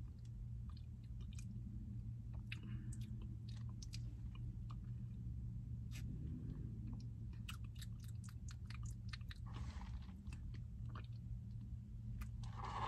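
Faint sipping of a drink through a plastic straw, with small mouth clicks and swallows, over a steady low hum in the car.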